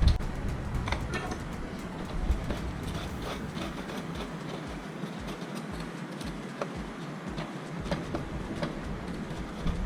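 Plastic printer parts being handled and cleaned: scattered light clicks and rubbing over a steady low rumble.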